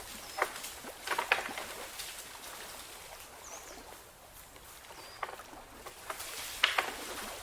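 Natural water splashing and gurgling at irregular intervals, with a few louder splashes about a second in and near the end, over a steady faint rush of flowing water. A couple of faint high bird chirps come in the middle.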